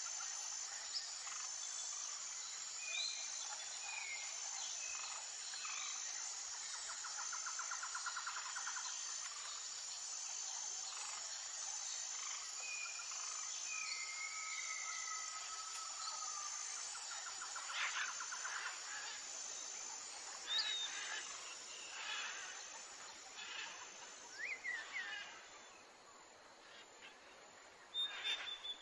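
Outdoor ambience of birds chirping and calling over a steady insect drone, with a short high chirp repeating at an even pace throughout.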